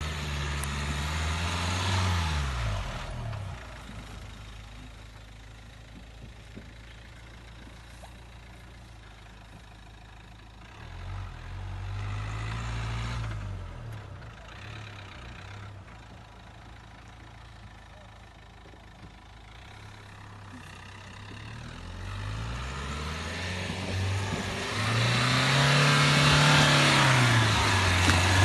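Duster SUV's engine revving in three surges, its pitch climbing and dropping each time, with quieter running between. The last surge, near the end, is the longest and loudest, with a rush of noise over the engine.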